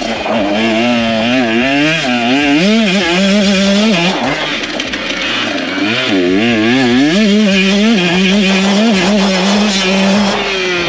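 2024 KTM 125SX two-stroke single-cylinder dirt bike engine being ridden hard, its pitch rising and falling over and over with throttle and gear changes, dropping briefly about four seconds in, then climbing and holding high near the end.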